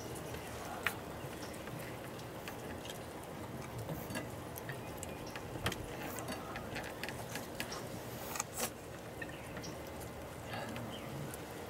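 Cats eating dry food from dishes on a wooden porch: scattered small crunches and clicks over a steady hiss, with a few sharper clicks about a second in, midway and later on.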